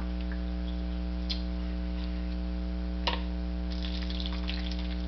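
Water poured from a plastic bottle into a glass seltzer bottle, trickling for about a second near the end, over a steady electrical mains hum. Two light handling clicks come before the pour.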